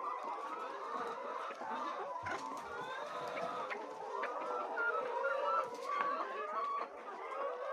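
A flock of laying hens clucking, many overlapping calls at once, with a few brief knocks.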